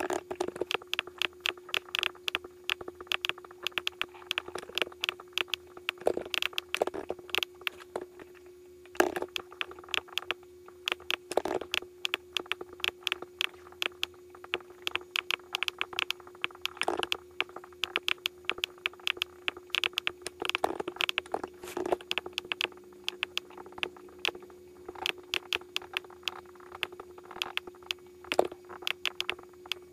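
Rapid, irregular clicking of a computer's keys and buttons, several clicks a second with a few brief pauses, over a steady low hum.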